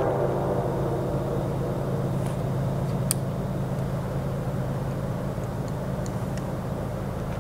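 A steady low engine drone, slowly easing off. A chord of higher tones dies away in the first second, and there is a single sharp click about three seconds in.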